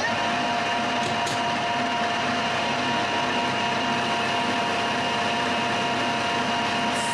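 Metal lathe turning a 303 stainless steel bar, a carbide insert tool taking a light finishing cut at a raised spindle speed and slow feed. The lathe runs steadily with an even whine carrying two steady tones.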